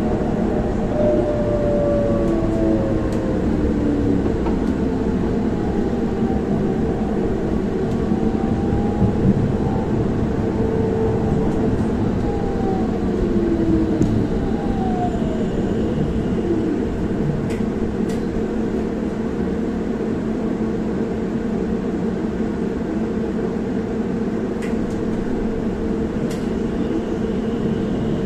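Electric tram slowing to a stop, its drive whining in several sliding, mostly falling tones over a steady low drone. The sliding tones die away after about sixteen seconds, leaving the steady hum of the halted tram with a few faint clicks.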